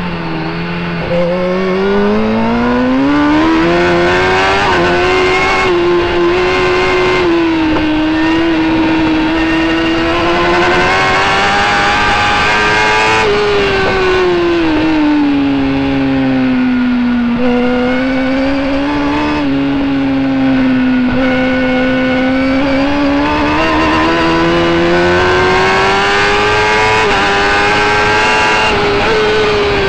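Superbike engine at racing speed, heard from an onboard camera on the bike: the engine note climbs and falls several times with the throttle through the corners, over a constant rush of wind and road noise.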